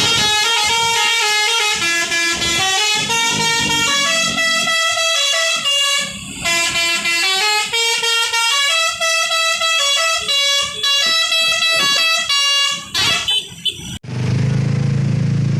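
Bus's multi-tone 'telolet' air horns playing a Pakistan-style melody, loud, stepping from note to note with short gaps. About fourteen seconds in the tune breaks off and is replaced abruptly by a low steady drone.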